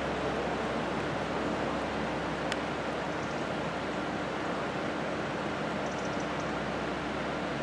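Steady rush of running river water, an even noise with no rise or fall.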